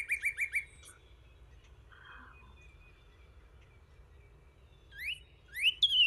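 Recorded northern cardinal song: a rapid run of repeated whistled notes ends within the first second, then about four seconds of faint recording hiss. Near the end a new phrase starts with rising slurred whistles and a loud falling one.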